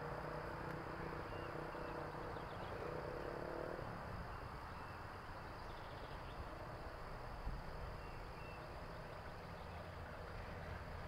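Outdoor background ambience: a steady faint hiss, with a low hum during the first four seconds and a couple of faint, short high peeps.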